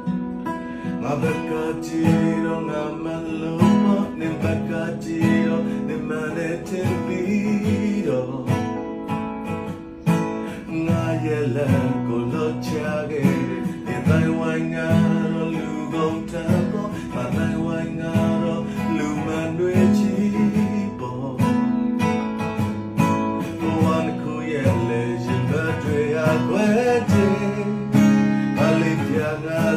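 Acoustic guitar strummed and picked, a continuous run of chords with a moving melody line.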